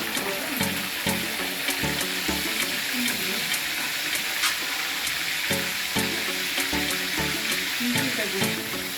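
Hot oil sizzling and crackling steadily as food fries, over background music.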